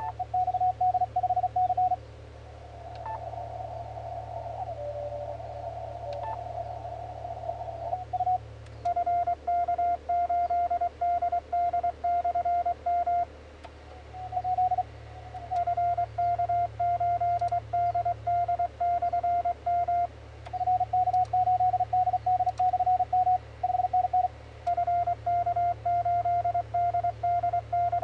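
Morse code (CW) tones from an amateur HF transceiver. For the first eight seconds a signal is heard through rough band noise. From about nine seconds in, a clean, strong keyed tone sends steady dits and dahs, with brief pauses in the keying. A steady low hum runs underneath.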